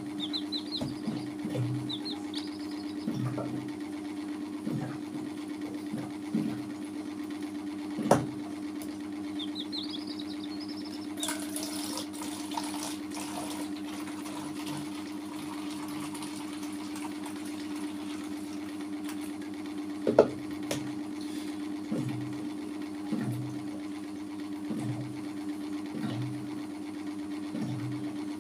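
A steady low hum with soft, irregular low knocks and two sharp clicks. Twice, a short run of high peeps from the young chicks.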